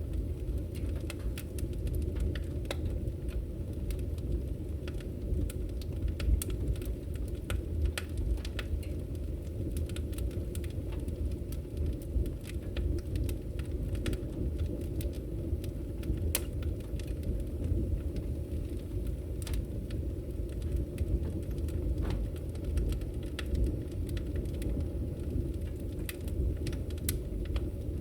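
Firewood burning: a steady low rumble of flames with frequent irregular sharp crackles and pops from the wood.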